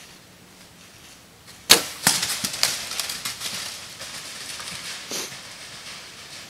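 A bow shot: one sharp crack of the bowstring and arrow just under two seconds in, followed by deer crashing off through dry leaves in a quick run of rustling thuds that fades, with one more rustle about five seconds in.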